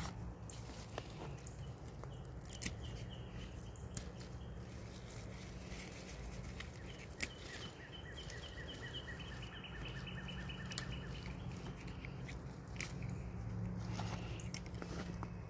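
Sugar snap pea vines and leaves rustling and crunching as they are handled by hand, with a couple of sharp snaps. In the middle a bird sings a rapid trill of repeated high chirps in the background.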